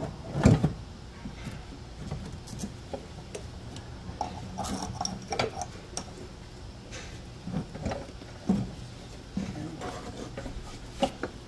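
Scattered clicks, knocks and rattles as a Mazda CX-9's brake power booster is worked free and lifted out, knocking against the lines and hoses around it. The loudest knock comes about half a second in.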